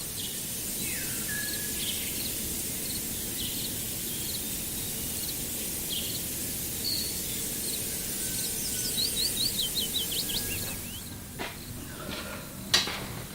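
Outdoor ambience: a steady high insect drone with scattered bird chirps, and a quick run of falling chirps about nine seconds in. The insect drone stops about eleven seconds in, followed by a couple of sharp knocks.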